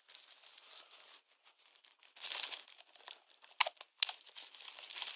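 Plastic packaging crinkling and rustling as it is handled and pulled open, with a few sharper crackles partway through.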